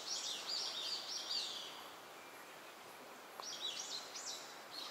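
A songbird singing two runs of quick, high, arching notes. The first run ends about a second and a half in, and the second starts a little past three seconds in. A faint outdoor hiss lies under it.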